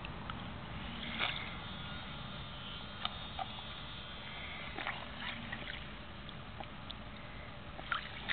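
Water splashing and sloshing in a shallow inflatable paddling pool as a toddler's hands pat and stir it, with a few short, sharp splashes standing out.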